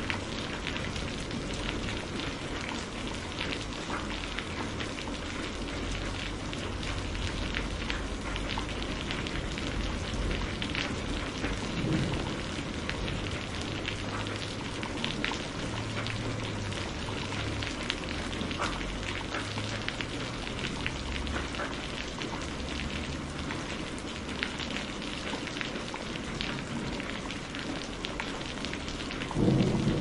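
Steady rain falling with many fine drop ticks, over a low, wavering rumble of distant thunder. About a second before the end, a louder roll of thunder breaks in.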